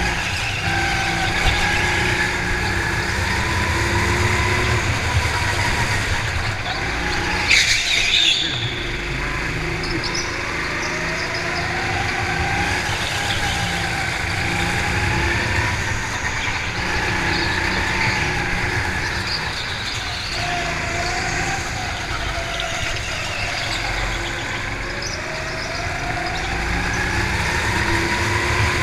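Go-kart engine running hard, its pitch rising and falling as the kart accelerates down the straights and lifts for the corners. A brief high screech comes about eight seconds in.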